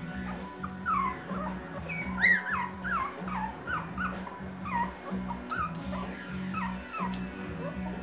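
Four-week-old puppies whimpering and yipping: many short, high calls, each falling in pitch, several a second.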